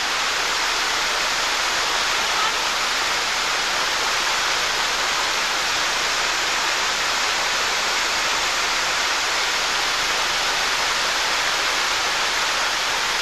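Fast white water rushing over rocks in rapids: a steady, even rush with no breaks.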